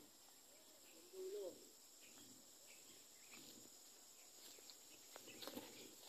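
Near silence: faint rural outdoor ambience with a steady faint high hiss, a brief faint voice-like call about a second in, and light rustling and clicks near the end as someone moves through the tall weeds.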